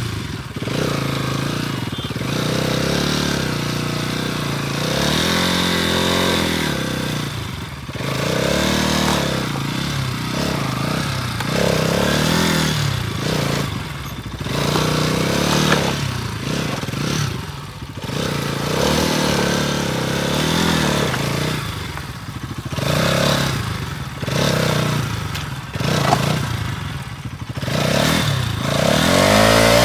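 Bajaj Pulsar NS200's single-cylinder engine revving up and dropping back again and again, every couple of seconds, as the bike struggles through deep clay mud with its rear wheel dug in.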